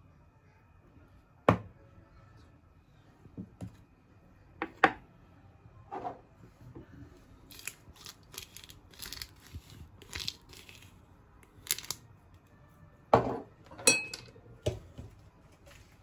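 Kitchen handling sounds while spice is sprinkled over raw fish fillets: a few sharp knocks of a container or utensil being handled, with a run of short scratchy strokes in the middle.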